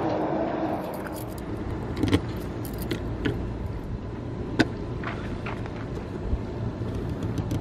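Light clicks and clatter of a plastic garden-hose connector being handled and a vehicle's water-filler cap being opened, a few sharp ticks spread over several seconds above a steady low rumble.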